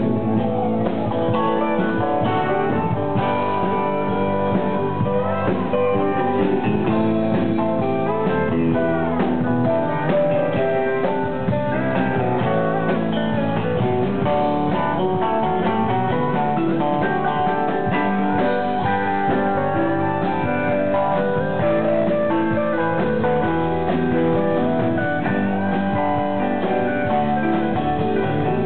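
Live band playing an instrumental passage, with electric guitar over keyboards.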